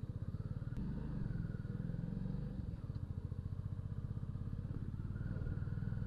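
Hero Passion Plus motorcycle's single-cylinder four-stroke engine running steadily at low road speed as the bike rides along, its even firing pulses picked up by a helmet-mounted action camera's external mic.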